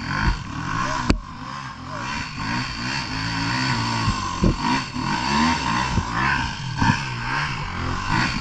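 Enduro dirt bike engines running and revving up and down, the pitch rising and falling every second or so. A sharp click sounds about a second in.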